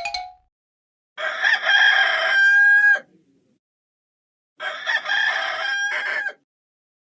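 A rooster crowing twice, two long cock-a-doodle-doo calls a few seconds apart, each ending on a held note: the Hollywood Edge 'Bird Rooster Two Crow' library effect.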